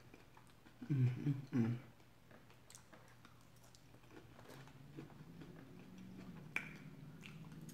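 Salad being chewed with the mouth closed, with faint clicks of a fork in a plastic bowl. About a second in, three short hums come from the eater.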